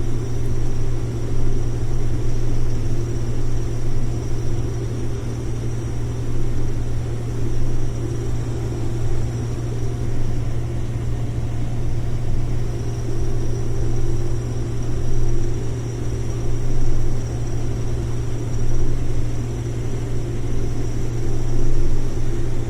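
Combine harvester shelling corn, its Cummins diesel engine running steadily under heavy load: a constant low drone with a faint high whine above it.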